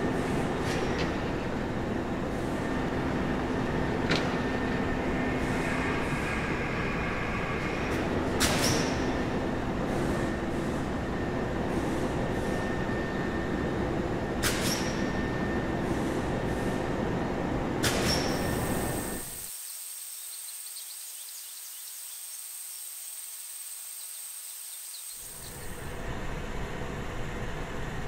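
Stone-sphere polishing and grinding machinery running with a steady grinding noise, with a sharp knock every few seconds. For several seconds near the end it gives way to a thin high hiss with a high whine, before the machine noise returns.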